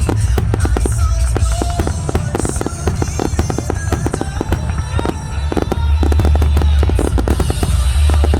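Fireworks finale: a dense run of rapid bangs and crackles over a deep, continuous rumble, with music playing along.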